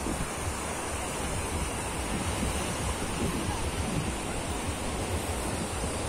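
Small surf waves breaking and washing on a sandy beach, a steady rushing noise, with wind buffeting the microphone as a low rumble underneath.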